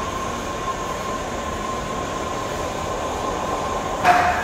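Steady mechanical hum with a thin, steady whine running through it, and a brief louder noise about four seconds in.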